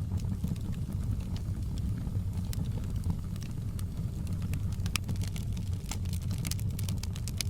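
Log fire crackling, with scattered sharp pops that come thickest about six to seven seconds in, over a steady low rumble.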